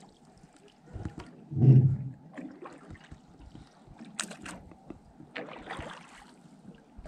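Small boat on calm water: soft paddle splashes and water lapping against the hull, with scattered light knocks and one low thump about two seconds in.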